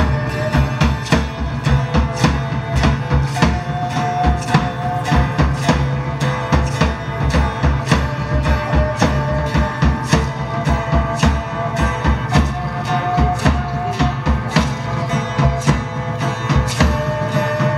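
Live folk-rock band playing: a drum kit keeps a fast, steady beat under a melody of long held notes.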